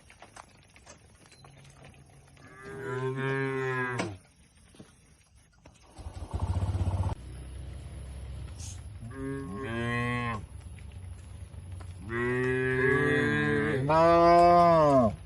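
Cattle mooing: one call about two seconds in, a shorter one around ten seconds, and a long drawn-out call, bending down in pitch at its close, near the end. A brief low rumble of noise sounds about six seconds in.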